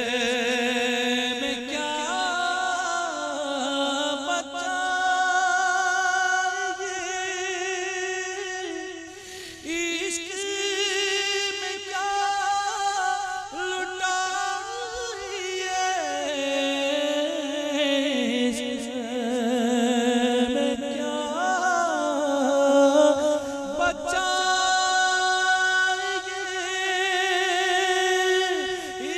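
A male naat reciter singing an Urdu naat unaccompanied, drawing out long, wavering held notes in slow, melismatic phrases that glide from pitch to pitch.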